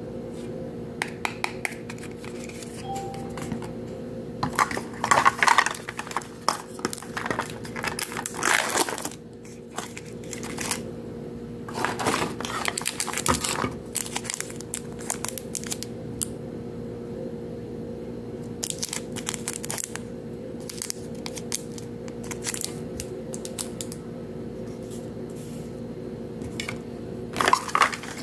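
Plastic wrappers and paper crinkling and tearing as a toy capsule is unwrapped by hand, with small clicks and taps of the plastic capsule pieces, coming in irregular bursts. A steady low hum runs underneath.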